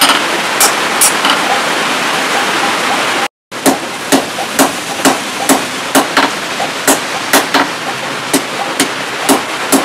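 Hand hammer striking a red-hot steel blade, forged from a motorcycle brake disc, on an anvil: sharp ringing blows, roughly two a second, over a steady rushing noise. The sound drops out briefly about a third of the way in, then the blows go on.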